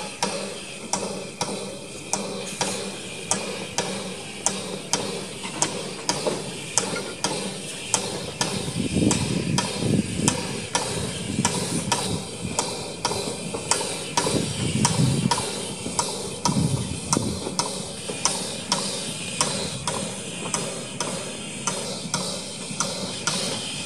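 Small narrow gauge steam tank locomotive working slowly under load, its exhaust beating steadily at about two a second over a background hiss.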